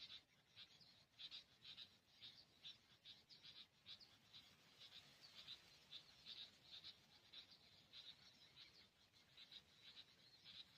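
Faint, rapid high-pitched chirping calls, repeating several times a second without a break.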